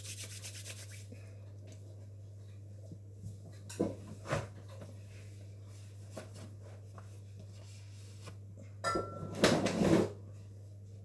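Kitchen handling noises: a few light knocks and clicks of a bowl and utensils, then a louder clatter about nine seconds in, over a steady low hum.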